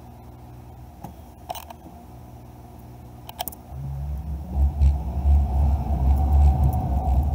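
Car driving, heard from inside the cabin: a low steady hum with a couple of faint clicks, then about four seconds in a much louder low rumble of engine and road noise.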